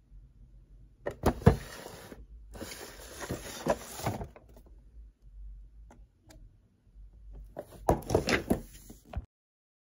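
Cardboard toy box being handled and slid about on a glass tabletop: scraping and rustling with a few sharp knocks, in three short spells. The sound cuts off suddenly near the end.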